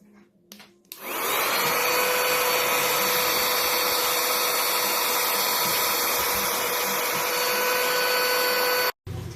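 Rechargeable handheld mini vacuum cleaner switched on about a second in, its motor spinning up to a steady high whine with a rush of air, then cutting off suddenly near the end.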